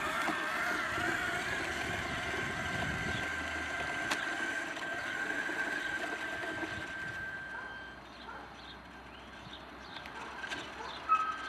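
Radio-controlled model Pegaso truck's motor whining steadily as the truck drives off. The whine stops about eight seconds in, leaving faint short chirps, and a whine and a sharp click come back near the end.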